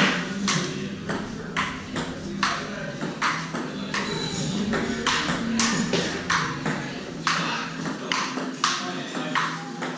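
Table tennis ball clicking back and forth off paddles and table in a long, fast rally, about two hits a second.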